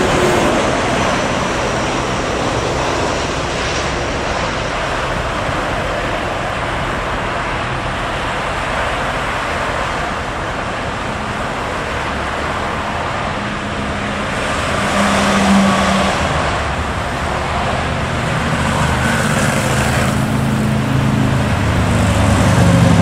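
Steady jet-engine roar of a landing Malaysia Airlines Boeing 737 rolling out on the runway, easing off over the first half, mixed with road traffic. Vehicles pass about 15 seconds in and again near the end, with a low engine rumble building at the close.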